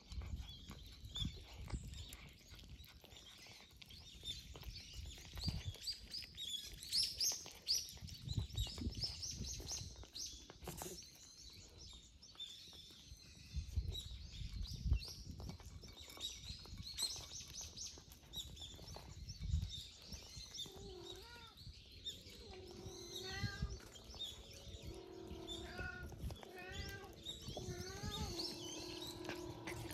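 Small birds chirping over and over, with a few low thuds. From about twenty seconds in, a cat meows again and again in short rising-and-falling calls.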